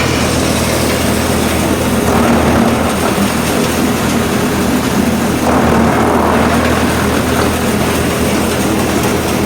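Wood drum chipper running steadily with a low mechanical hum, a louder rush of noise rising a little over halfway through.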